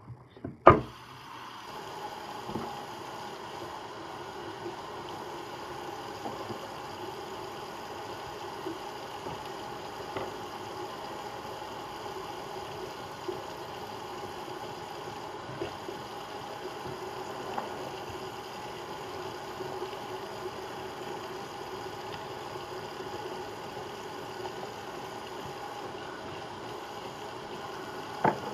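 A sharp knock just under a second in, then a bathroom sink tap running steadily, water pouring into the basin.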